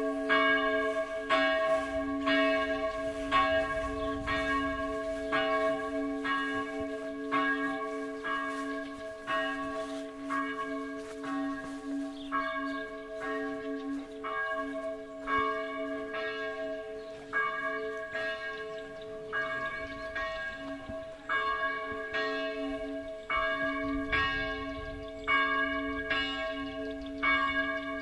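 Church bells ringing, more than one bell striking over and over, about one to two strokes a second, their notes ringing on between strokes. This is the ringing that calls people to the service.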